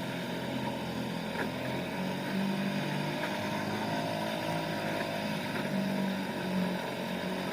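Nissan (Tohatsu) 3.5 hp two-stroke outboard motor running steadily at low throttle, its pitch wavering slightly as it pushes a small aluminum canoe.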